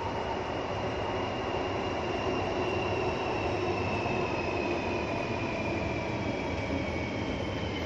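Elevated light-rail train running along a concrete viaduct: a steady running noise with a high whine that slowly falls in pitch.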